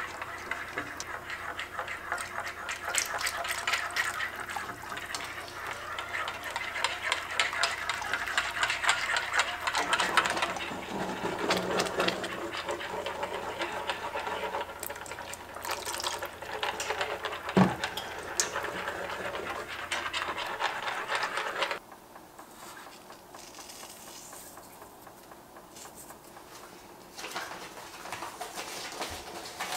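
Wire whisk beating a thick milk sauce in an enameled cast iron pot: fast wet slopping and the wires scraping the pot, with one sharp knock of the whisk against the pot about two-thirds of the way through. The whisking stops a little before the last quarter, leaving the sauce simmering faintly.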